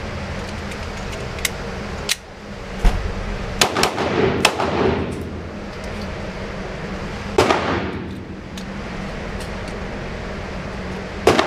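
Handgun shots on an indoor shooting range: about nine sharp reports at irregular spacing, several in quick succession a few seconds in, then single shots later and near the end. Each shot echoes off the range walls over a steady ventilation hum.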